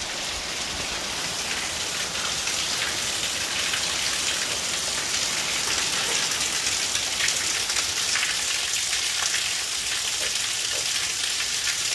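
Steady rain falling on a covered patio and wet paving, dense with fine drips and splashes, with water spilling from an overflowing downspout onto the pavers.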